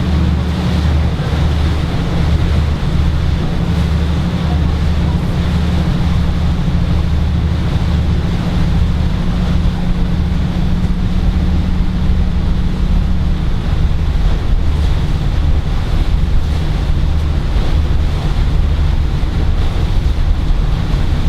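Tour boat's engine running steadily underway, a low drone whose note shifts slightly about thirteen seconds in, with wind buffeting the microphone and water rushing past the hull.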